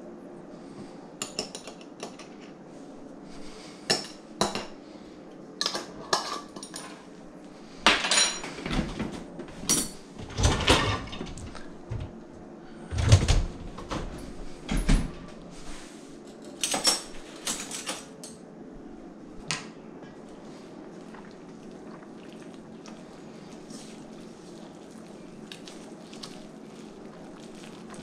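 Kitchen clatter as metal bowls and utensils are handled: a string of clinks and knocks over the first twenty seconds or so, loudest around the middle, then only a faint steady hum.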